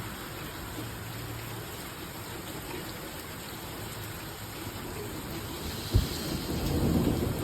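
Steady rain hissing during a thunderstorm. About six seconds in there is a sharp low thump, and thunder begins rumbling up toward the end.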